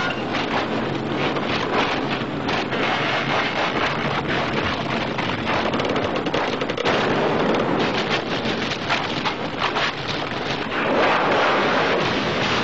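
Cartoon sound effects: a loud, continuous rushing rumble with fast crackle running through it, swelling near the end.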